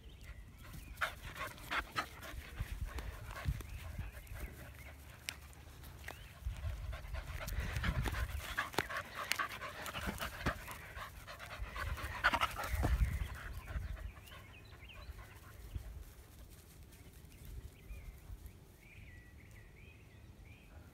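A dog panting close to the microphone, the breathing coming and going and strongest in the middle, with scattered sharp clicks.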